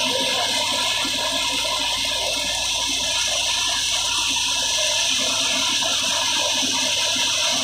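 Tractor-driven wheat thresher running steadily under load as sheaves are fed in: a continuous, even rushing hiss from the drum and blower, with a faint low hum beneath.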